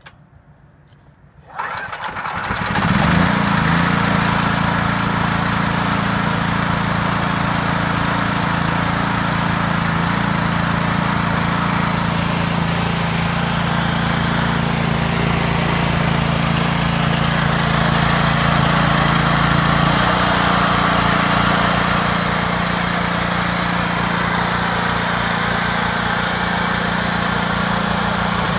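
KingCraft portable generator's 13 hp engine on a cold start: it catches about a second and a half in, picks up speed, and settles into a steady run.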